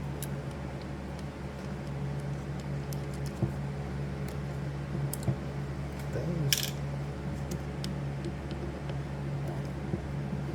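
A few small metal clicks and taps of a magnetised screwdriver working the screws on a pinball score reel unit, spaced irregularly, over a steady low hum.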